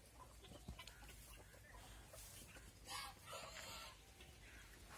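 Near silence with faint farmyard sounds: soft rustling and small clicks, a brief louder scratchy rustle about three seconds in, and faint clucking of chickens.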